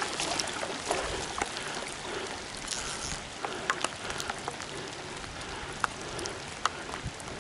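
Rain falling: a steady hiss with scattered sharp drops ticking close by.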